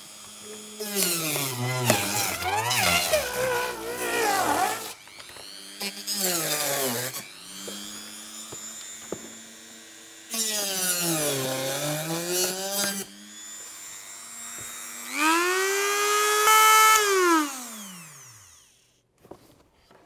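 Handheld rotary tool with a cut-off wheel whining as it cuts through packing tape on a cardboard box, in four bouts, its pitch sagging each time the wheel bites and rising again as it frees. Near the end it runs up once more, then is switched off and winds down.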